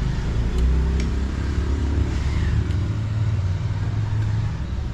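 A motor vehicle's engine running with a steady low rumble, with a few light clicks over it.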